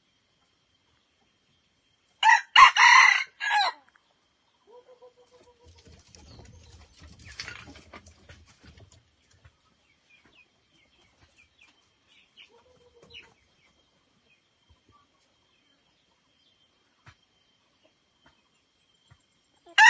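Red junglefowl rooster crowing: one short, clipped crow about two seconds in, then a few soft low calls and faint rustling. A second crow begins at the very end.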